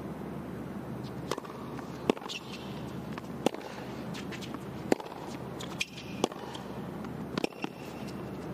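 Tennis rally on a hard court: a ball struck by the rackets with sharp pops about every second and a half, starting with the serve about two seconds in, and fainter ticks of the ball bouncing between the hits.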